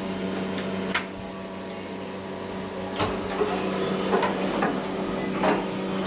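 Otis Series 1 elevator car with a steady hum, a floor-button click about a second in, then more clicks and knocks as the doors shut and the car gets ready to move.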